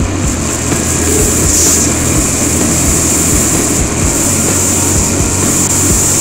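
Motorcycle engine running at a steady cruising speed, mixed with heavy wind rush on the onboard camera.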